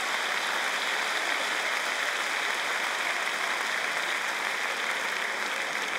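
A large audience applauding steadily, with laughter mixed in, after a punchline.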